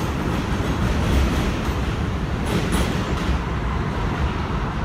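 R62A subway train on the 6 line pulling away, its wheels running on the rails with a steady low rumble. A few sharp clicks come about two and a half seconds in.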